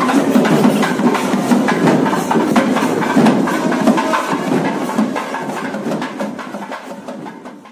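Procession band of a double-headed barrel drum and wind instruments playing, with rapid, dense drum strokes. The music fades away over the last couple of seconds.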